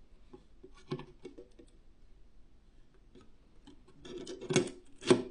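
Small clicks and taps of PC parts being handled on a bench, with a sharp click about a second in, a scraping rustle about four seconds in and a loud click near the end.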